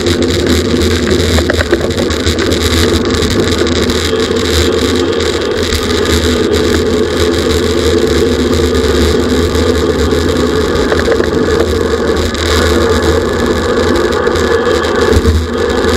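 Steady, loud rush of wind and road noise on a bicycle-mounted camera's microphone while riding at race speed, heaviest in the low end.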